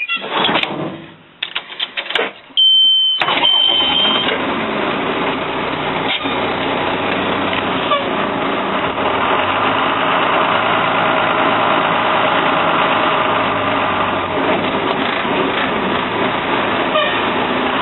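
A few knocks, then a high steady beep, and the 1998 Ford Blue Bird bus's 5.9-litre Cummins turbo diesel starts suddenly about three seconds in and settles into a steady idle.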